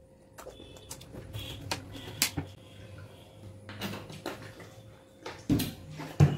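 Plastic water bottles being handled while drinking, with scattered clicks and knocks and two louder knocks in the last second.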